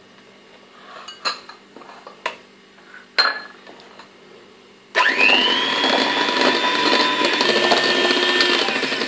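A few light knocks, then an electric hand mixer switched on about five seconds in: its motor whines up quickly to a steady pitch as the beaters cream butter and icing sugar in a glass bowl.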